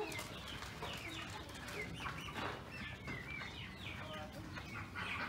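Flock of chickens clucking, many short falling calls overlapping one another.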